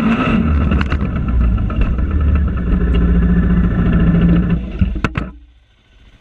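Arctic Cat DVX 400 ATV's single-cylinder four-stroke engine running under throttle. About five seconds in there are two sharp knocks, and the engine sound falls away quickly.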